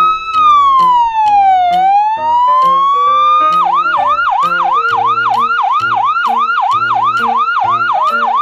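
Electronic ambulance siren: one slow wail rising and falling, then switching about three and a half seconds in to a fast yelp of about three sweeps a second. Background music with a steady beat plays under it.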